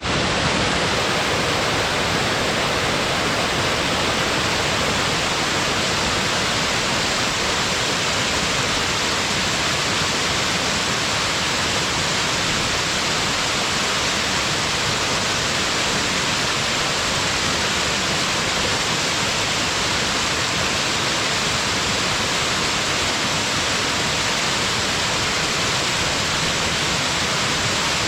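Waterfall: a steady, dense rush of falling water, even throughout with no breaks.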